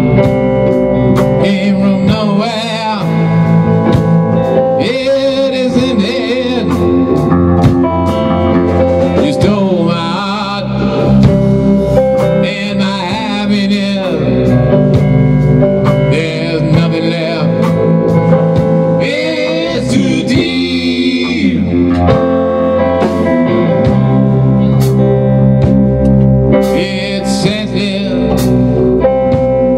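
Rock band playing live: electric guitars over a drum kit, with wavering, bending lead lines.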